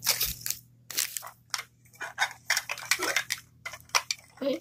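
Plastic crinkling and clicking in quick, irregular bursts as a plastic toy capsule and its wrapped contents are handled.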